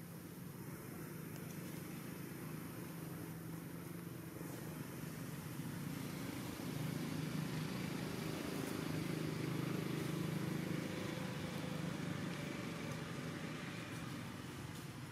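A motor engine's low steady hum, growing louder through the middle and easing slightly near the end.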